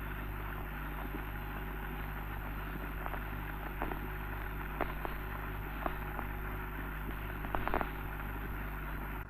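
Hiss and steady low mains hum of an old optical film soundtrack, with scattered crackles and clicks in the middle seconds.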